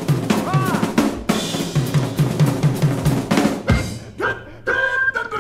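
Live band in an instrumental passage: a busy drum kit fill with snare, bass drum, cymbals and rolls. About four seconds in it thins out to sparser drum hits under held chords.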